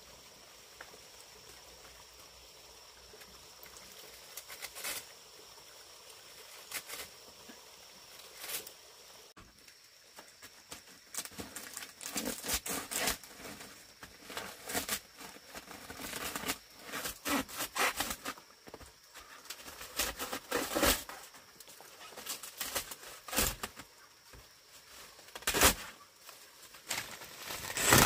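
Dry thatching leaves rustling and crackling in irregular bursts as they are handled and pulled. It starts quiet with a few isolated clicks and grows busier and louder from about a third of the way in, with a few sharper knocks.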